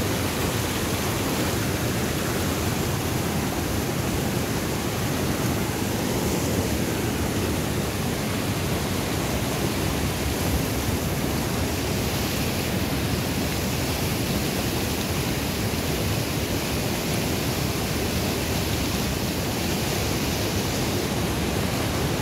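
Fast-flowing river water rushing steadily over stones, an even, unbroken noise.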